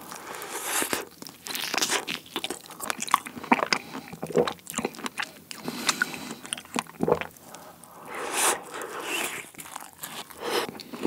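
Close-miked biting and chewing of a strawberry cream tart with a dark cookie-crumb crust, with many irregular crunches.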